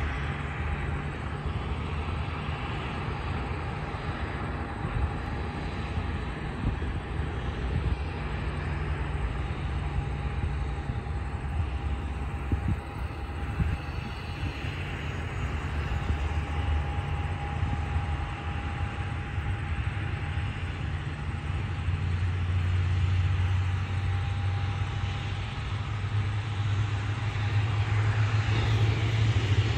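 Distant airliner engines running on the airport apron: a steady low drone with a faint steady whine, growing louder over the last several seconds.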